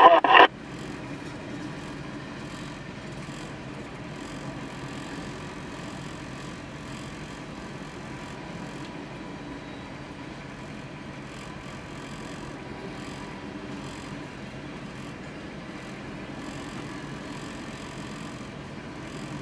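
Freight train's gondola cars rolling past over a grade crossing, a steady rumble and rattle of steel wheels on the rails. A brief loud burst of sound cuts off about half a second in.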